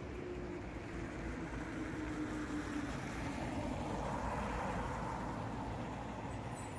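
A car drives past on a snowy road, its tyre and engine noise swelling to a peak about four seconds in and then easing off. Before that a faint whine falls slowly in pitch.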